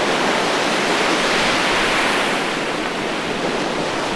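Steady rush of ocean surf, swelling a little about a second and a half in.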